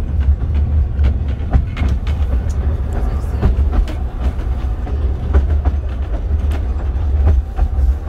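Talyllyn Railway narrow-gauge carriage running along the track, heard from inside the carriage: a steady low rumble with irregular clatter and knocks from the wheels on the rails.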